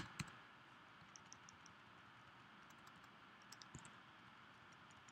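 Faint, scattered computer keyboard keystrokes in small clusters, with one sharper click right at the start.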